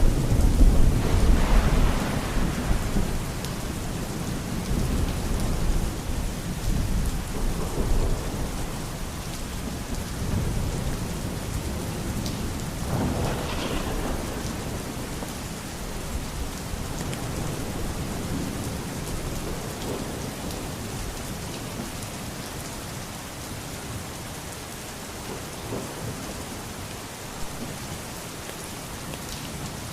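Steady rain falling, with thunder: a loud rumble right at the start that rolls off over a few seconds, then fainter rumbles about a third of the way in and near the middle, after which only the rain goes on.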